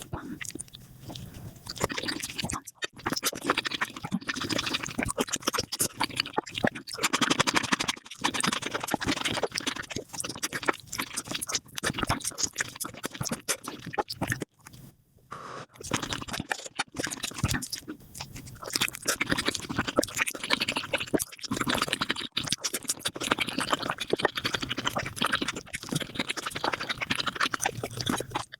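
Close-miked eating sounds of spicy beef feet being chewed and bitten, played back at five times speed so the smacks and clicks run together into a fast, dense crackle, with brief breaks about 3 and 15 seconds in.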